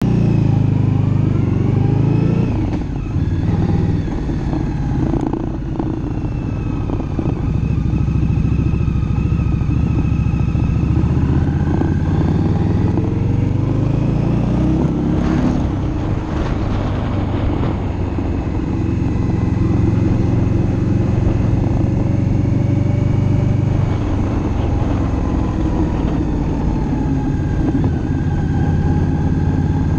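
2018 Indian Scout Bobber's V-twin engine running through a stage 1 exhaust while riding. The revs rise and fall through gear changes, near the start and again around the middle, with steady cruising in between.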